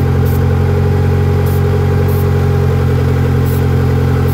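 Honda engine idling high and steadily, with the sound of a bad exhaust leak; the owner suspects a vacuum leak behind the high idle. Short hisses of a carb cleaner spray can sound four times as it is sprayed over the vacuum lines.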